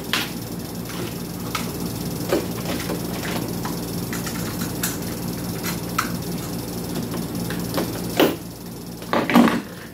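Small clicks and knocks of hands handling the wiring and connectors of an automatic voltage regulator on a workbench, over a steady low hum. Two louder knocks come near the end.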